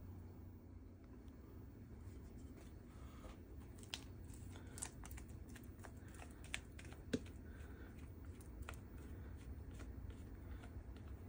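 Faint scraping and handling of a silicone spatula against a plastic mixing bowl as thick mousse filling is scraped out, with a few light clicks, the sharpest about seven seconds in, over a low steady hum.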